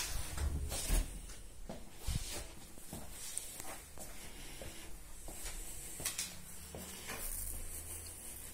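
Soft scattered knocks and rustles over a low rumble, with a louder thump about a second in: a hand-held phone camera being handled and carried on foot through a small room.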